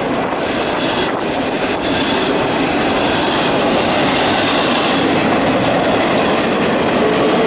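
Freight train of intermodal well cars rolling past close by: a steady loud rumble and rattle of wheels on rail, with a few clicks over rail joints early on. A steady high tone comes in near the end.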